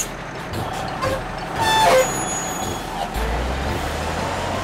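Cartoon tow-truck sound effects: a steady engine and road noise, with a short falling tone about two seconds in, the loudest moment, and a deeper low rumble setting in about three seconds in.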